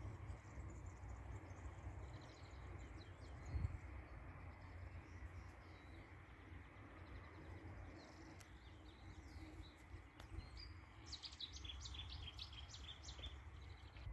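Faint outdoor ambience: a low steady rumble with small birds chirping now and then, a quick run of chirps near the end, and a soft thump about three and a half seconds in.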